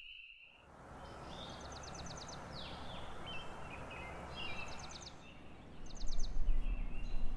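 Birds singing in the forest at dawn: repeated quick trills and short falling whistled notes, several times over, above a steady background hum that matches the distant road traffic heard from the campground. A louder low rumble comes in about six seconds in.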